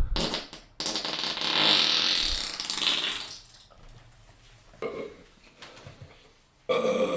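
A hissing, fizzy noise lasting about two and a half seconds, then a brief short sound, and near the end a person's long, pitched burp begins.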